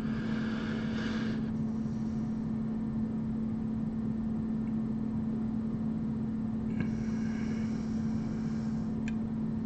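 Steady hum at one constant low pitch over a background of room noise, with a soft hiss that rises twice, at the start and again about seven seconds in.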